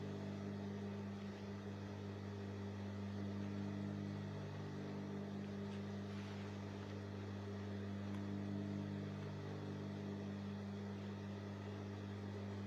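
Steady electric hum, an even drone of mains-frequency tones with no stitching rhythm.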